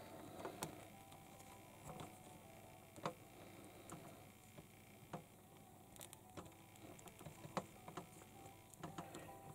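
Small plastic toy-figure parts clicking and tapping as they are handled, in sparse, irregular single clicks over a faint steady hum.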